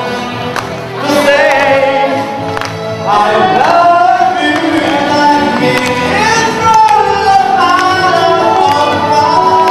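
A song with sung vocals over instrumental accompaniment, at a steady loud level.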